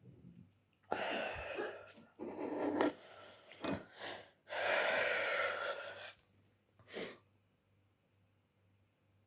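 A person with the flu coughing hoarsely from the throat, in several harsh, wheezy bursts, the longest about a second and a half.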